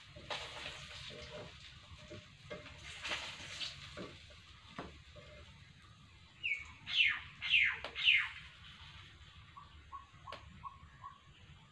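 Birds calling: a few loud, quick calls sliding down in pitch a little past halfway, with fainter short calls elsewhere. Faint scrapes of a metal spatula in a wok sound underneath.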